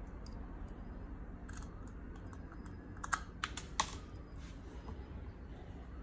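Small sharp metal clicks and taps from handling a 2.5-inch SSD, its metal holder and a small screwdriver while screwing the drive in, bunched into a quick run of a few clicks about halfway through, with fainter ticks elsewhere over a steady low hum.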